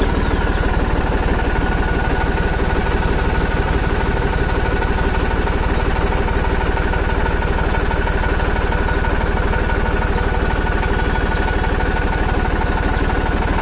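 Massey Ferguson 9500 tractor's turbocharged three-cylinder Simpsons diesel engine idling steadily, just after being started.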